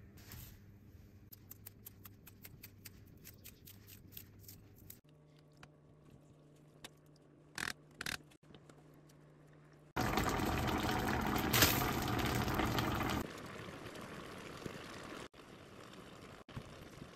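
Korean army stew (budae-jjigae) cooking in a pan: light clicks and clinks of a spoon and ladle as seasoning goes in and is stirred, with two sharper knocks about halfway. Then the broth boils, loudest for about three seconds past the middle, and simmers more quietly towards the end.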